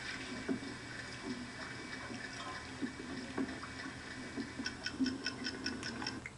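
Water trickling and dripping inside the hull of a submarine stuck on the seabed, with faint scattered creaks and knocks. About two-thirds in, a quick regular ticking of about five ticks a second starts: a pocket watch ticking.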